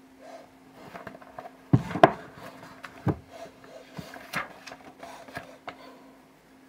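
Handling noise from a paperback comic book and things on a table: rubbing and light rustling, with a couple of sharp knocks about two seconds in and another about a second later.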